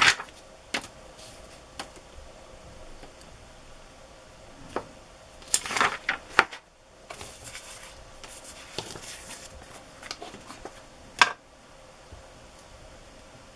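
Paper rustling and light knocks of a clear acrylic stamp block being handled on a craft table, with a louder rustle about six seconds in and a sharp tap near the end.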